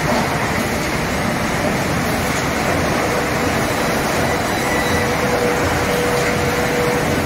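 Spindleless rotary veneer peeling lathe running and peeling a eucalyptus log into veneer: a steady, loud noise of drive motors, rollers and knife on wood. A steady hum stands out from about halfway through.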